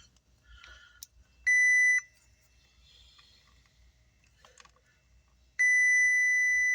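Digital multimeter continuity beeper giving a single steady high-pitched tone: one short beep, then a long beep starting near the end as the probes bridge a low-resistance connection on the amplifier board.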